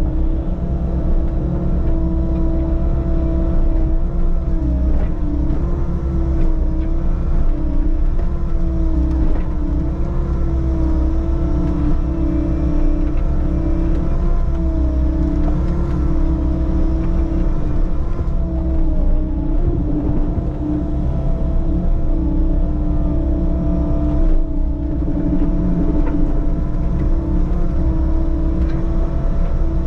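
Compact construction machine's diesel engine running steadily, its pitch dipping and recovering every few seconds as the machine works.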